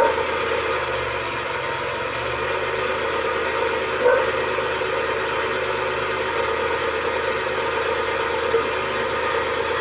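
Suzuki F6A three-cylinder engine idling steadily, with its ignition timing set late.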